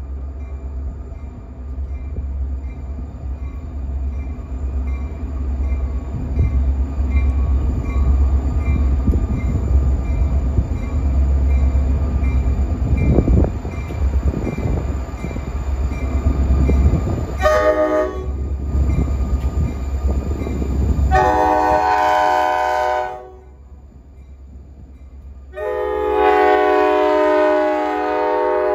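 New Jersey Transit diesel locomotive No. 4105 approaching, its engine's heavy low rumble growing louder. Its multi-note air horn sounds one short blast, then two long blasts near the end as the locomotive comes alongside.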